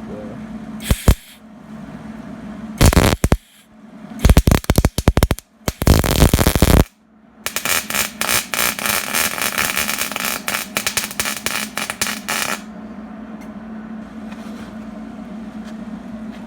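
Electric welding arc crackling and sputtering in stop-start bursts: four short strikes, then a longer run of about five seconds, over a steady low hum. These are a first-time welder's short, broken welds.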